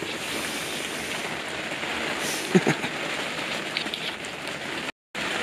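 Steady rain falling on a tent, an even hiss, with a short low vocal sound about two and a half seconds in. The sound cuts out briefly near the end.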